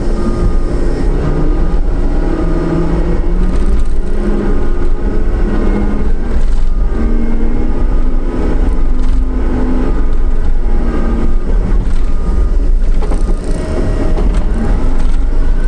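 John Deere 333E compact track loader's diesel engine running hard, its pitch shifting up and down as the machine works, with a few sharp clanks.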